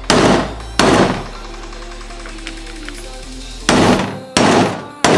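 Hammer striking a socket to drive U-joint bearing cups into a driveshaft yoke, used in place of a press: five sharp metal blows, two near the start and three close together near the end.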